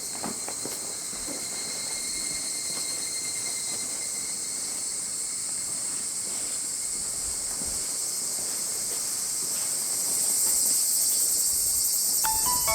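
Outdoor chorus of insects, a steady high-pitched shrilling with thin sustained tones, growing louder about ten seconds in. Music notes begin near the end.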